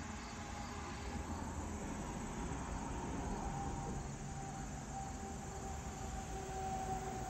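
Rural evening ambience: a low, steady distant rumble with faint insect chirping, and a long, faint wailing tone that slowly falls in pitch and grows louder through the second half.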